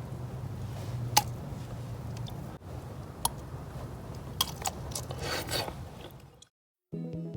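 Wood campfire crackling, with a few sharp pops over a low steady hum. It fades out about six and a half seconds in, and music starts just before the end.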